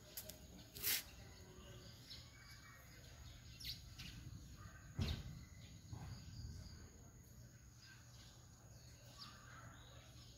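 Faint outdoor ambience with scattered bird chirps over a low steady hum, and a sharp thump about five seconds in; the eruption column itself makes no audible sound.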